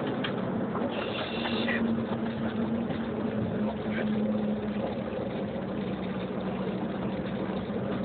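Engine and road noise inside the cabin of a Mitsubishi Lancer Evolution on the move, with a steady engine hum underneath.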